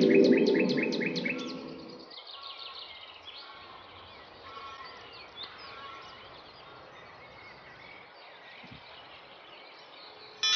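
A twinkling, chiming magic-sparkle effect over a low hum fades out over the first two seconds. Then birds chirp and sing softly and steadily against a faint outdoor hiss.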